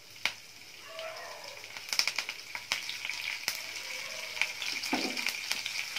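Curry leaves and mustard seeds sizzling in hot oil in a kadai, the tempering for rasam. The sizzle grows louder, with sharp crackling pops here and there as the leaves fry.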